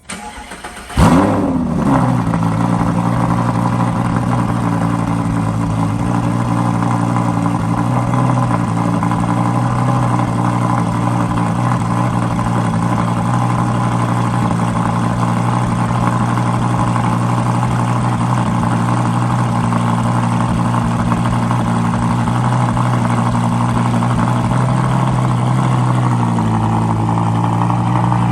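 Lamborghini Gallardo LP560's V10 with a Larini aftermarket exhaust starting up: a brief crank, then it catches with a loud flare about a second in. It settles into a steady fast idle, which eases down slightly near the end.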